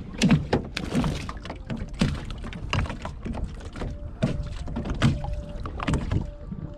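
Handling noise as a freshly caught peacock bass is held and unhooked over a landing net in a kayak: irregular knocks and rustles, one or two a second.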